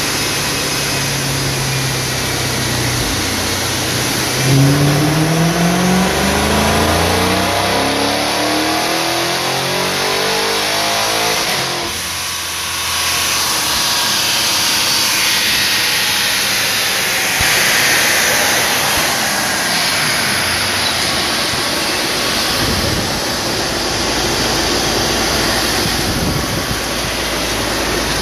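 Dodge Challenger 392's 6.4-litre HEMI V8 with a ProCharger P1X supercharger making a full-throttle pull on a chassis dyno: the engine's pitch climbs steadily for about nine seconds, then drops suddenly as the throttle closes, leaving a high supercharger whine winding down with the rollers.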